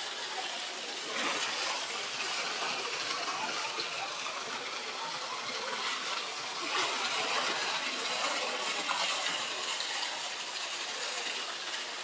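Artificial waterfall gushing steadily into a pool, with a few louder splashes as polar bears swim and wrestle in the water.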